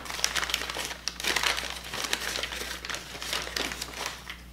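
Newspaper crinkling and rustling in irregular crackles as it is unwrapped by hand from around a small item.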